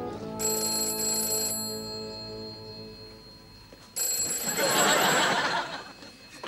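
Black desk telephone's bell ringing for an incoming call, in two bursts: one starting about half a second in and a louder one about four seconds in. Under the first ring the end of a brass music cue fades away.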